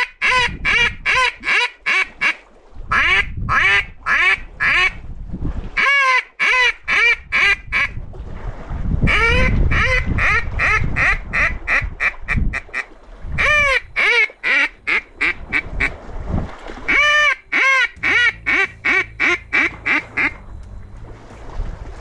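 Zink duck call blown in rapid runs of mallard hen quacks, about five quacks a second, each run lasting a few seconds, calling to mallards that have just taken off.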